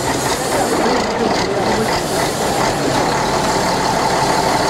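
Heavy articulated truck's engine running steadily.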